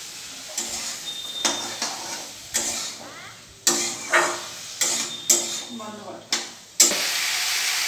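Steel spatula striking and scraping a steel kadai over and over as broccoli is stir-fried, each knock ringing briefly, with frying sizzle underneath. Near the end the sizzle suddenly jumps to a loud, steady hiss.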